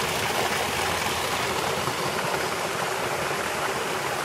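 Waterfall rushing steadily, a constant even noise of falling water.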